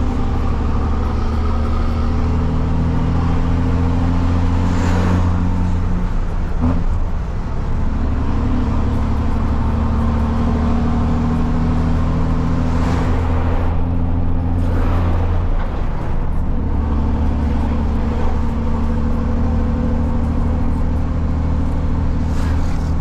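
Truck's diesel engine with a straight-through exhaust, pulling steadily as heard from the cab. It breaks off briefly about 7 seconds in and changes again around 16 seconds in, where gears are shifted.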